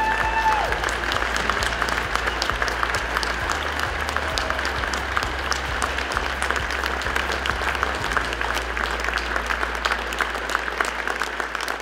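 Large audience applauding: a dense, even wash of many hands clapping. A held note from the preceding song ends in the first half-second, and a low steady hum runs beneath.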